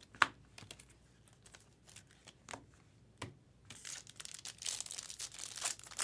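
A few sharp clicks and taps of trading cards being handled, the loudest right at the start. Then, from about two-thirds of the way through, a foil trading-card pack wrapper crinkling and tearing as it is ripped open.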